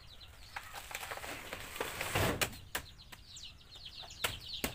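Knocks and a heavier thud about two seconds in from cutting and handling banana trunks with a machete, while birds keep up quick, high chirping.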